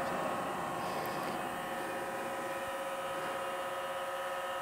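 Internal compressor of a VIGOR V7524 smoke leak tester running with a steady electric hum, pushing smoke into a car's intake manifold to find leaks.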